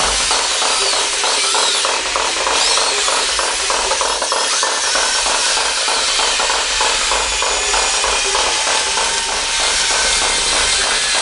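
Small electric motors and gearing of radio-controlled model construction machines running, chiefly the tracked excavator swinging and digging: a steady whirring hiss with a fast, even flutter.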